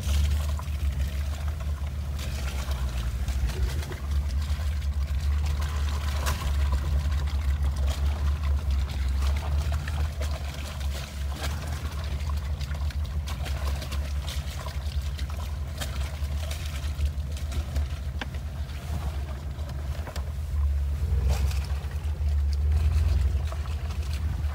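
Jeep driving slowly down a snowy, muddy trail, heard from inside the cab: a steady low engine and drivetrain rumble, with tyres working through snow and mud and scattered knocks and rattles as the Jeep rolls over the rough ground.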